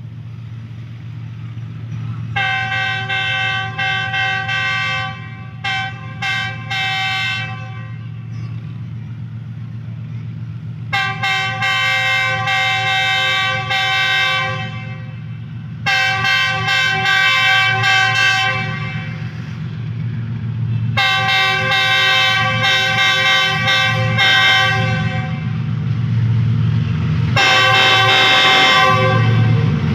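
GEU40 diesel-electric locomotive sounding its multi-tone horn: a blast that breaks into a run of quick short toots, then four long blasts a few seconds apart. Under the horn runs the train's low rumble, which grows louder toward the end as the train approaches.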